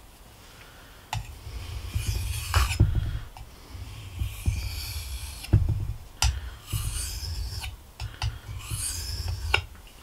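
Knife blade drawn across the coarse side of a white corundum whetstone in about four long grinding strokes, with a few small clicks of steel on stone between them.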